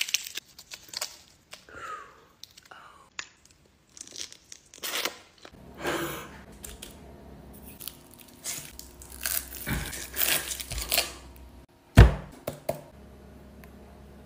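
Rustling and tearing as hands pull at a pineapple's leaves and rind, in scattered short bursts with small clicks, and one sharp knock about twelve seconds in.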